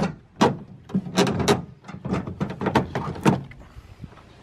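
Plastic taillight housing knocking and clattering against a car's sheet-metal rear panel as it is worked through a tight opening. The rapid irregular knocks stop about three and a half seconds in.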